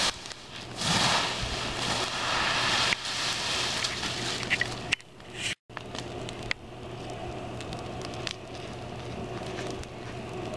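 Stick fire with toy cars burning in it, crackling and popping. A louder rushing hiss runs for the first few seconds, and the sound cuts out for a moment just past the middle.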